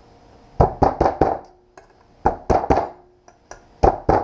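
Hammer tapping a brass retaining piece down over the clutch return spring in a PCM 40i boat transmission: about nine sharp metal-on-metal knocks in three quick groups, each with a short ring.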